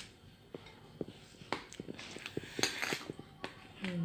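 Metal spoon stirring thick pancake batter in a ceramic bowl, making scattered light clicks and scrapes against the bowl.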